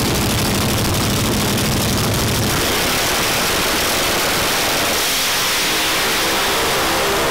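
Drag race car's engine at the starting line, shifting to a harder, noisier pitch a couple of seconds in, then launching and pulling away, its pitch climbing near the end.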